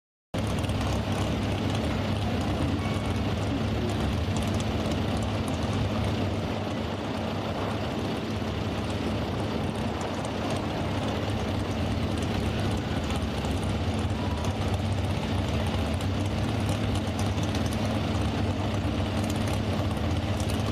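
Engine of an altered-stock pulling truck, a square-body Chevrolet pickup, idling steadily with a constant low hum.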